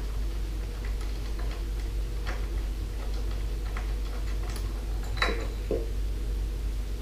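Scattered small metallic clicks and ticks as the bolt on the bottom of a small generator's carburetor float bowl is worked loose, the sharpest click about five seconds in, over a steady low hum.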